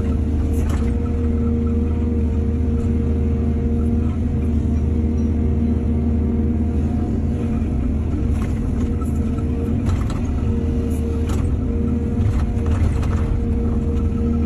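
Excavator's diesel engine running steadily under load, with a handful of short sharp knocks from the machine's work, one near the start and several clustered in the second half.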